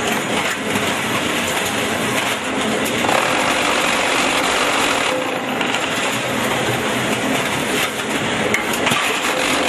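QT4-26 automatic concrete block making machine running through its moulding cycle: a loud, steady mechanical rattle and hum as its vibrating mould and press compact concrete into blocks.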